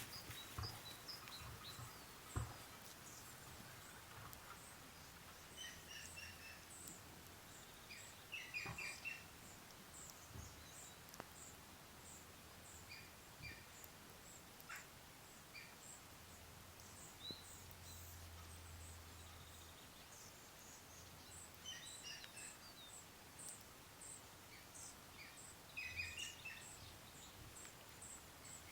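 Faint bird chirps in short, scattered clusters over a quiet hiss, with a brief thump about two seconds in and a soft low hum around the middle.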